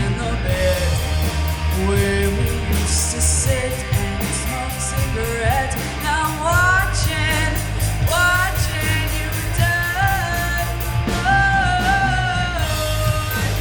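Live rock band of young musicians playing, with singing over guitars, bass and drums; a steady cymbal beat runs throughout, and the sung notes slide upward and are held in the second half.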